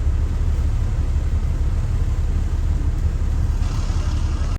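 Steady low rumble of a moving transit bus heard from inside, engine and road noise together, with a rush of hiss near the end.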